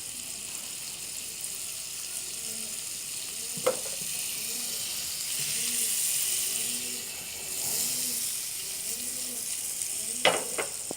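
Butter melting and sizzling in a hot pan on a gas stove: a steady hiss that swells about halfway through. A sharp knock about four seconds in and another near the end.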